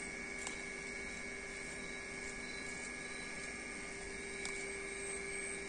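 Steady night insect chorus: a constant high trill over a lower steady hum and a faint hiss, with a couple of faint ticks about half a second in and again near the end.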